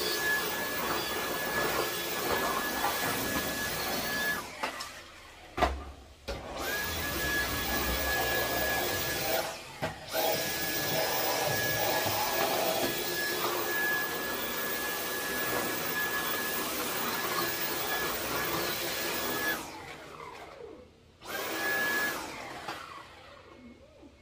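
Cordless stick vacuum cleaner running with a steady high whine over a rushing hiss, switched off and on several times: it stops about four seconds in, there is a knock, and it starts again about two seconds later. It breaks briefly near ten seconds, stops again near twenty seconds, and gives one short burst a couple of seconds after that.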